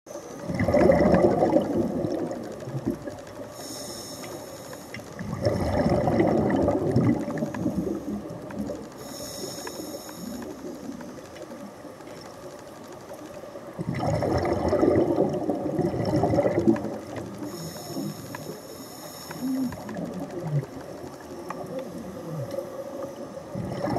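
A scuba diver's regulator breathing underwater in a slow cycle: each inhale a short, high hiss with a whistle in it, each exhale a gurgling rush of bubbles lasting two to three seconds.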